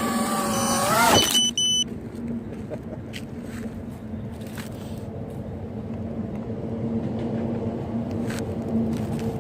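Brushless micro quadcopter's motors and propellers whining, the pitch wavering, then rising briefly and cutting off about a second in as it lands and the motors stop. Two short high beeps follow right after. A steady low hum and a few faint clicks remain.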